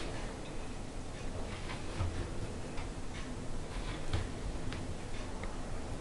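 Faint, irregular small clicks and taps from hands handling macramé cords and pins on a cushion, over a low steady room background.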